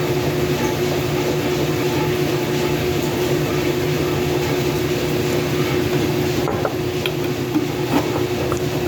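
Washing machine running with a loud, steady rumble and hum. A few light clicks come near the end.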